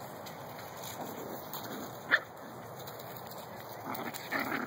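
Young Shih-poo puppy yipping: one short, sharp, high yip about two seconds in, and a few softer yips near the end.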